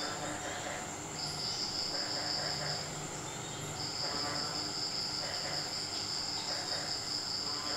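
Insects trilling in pulsed bouts, with short pauses a little after the start and near the middle, over a steady high-pitched whine.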